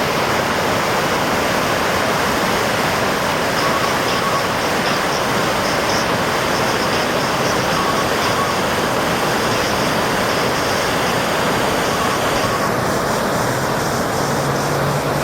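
Loud, steady rush of fast-flowing floodwater. About twelve seconds in, the hiss in the upper part of the rush drops away.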